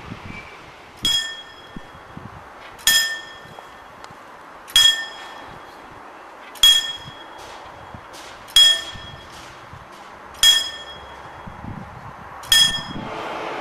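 Level-crossing warning bell striking seven single ringing strokes, about one every two seconds, while the crossing barrier lowers.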